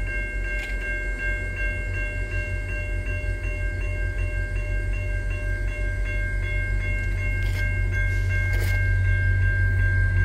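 Railway level-crossing warning bell ringing in a rapid, even rhythm, over the low rumble of a slow-approaching VIA Rail passenger train that grows louder toward the end.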